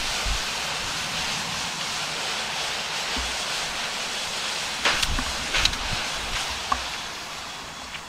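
Fire hose spraying a hard stream of water, a steady rushing hiss, with a few sharp clicks about five seconds in and once more near the end.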